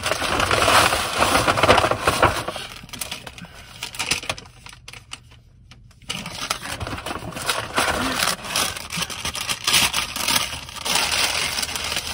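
Paper bag and food wrapping rustling and crinkling as a hand rummages in a brown paper takeout bag and pulls items out. It dies down briefly in the middle, then picks up again.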